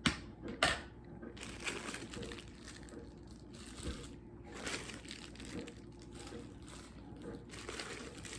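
Hands squishing and working slime, making crackly, crinkling noises, with two sharp snaps in the first second.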